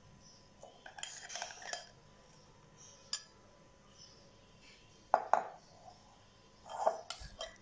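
Metal spoon clinking and scraping against a glass mug and glass bowl as thick whipped coffee is spooned onto iced milk: scattered taps and scrapes, the loudest about five seconds in.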